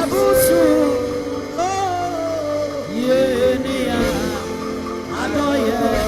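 Congregational worship music: voices singing a gospel song over a band, with long held, wavering notes.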